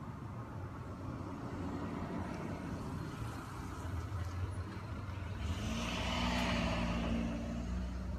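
Snoring: a low, rough rumble, swelling into one louder, raspier snore from about five and a half seconds in to near the end.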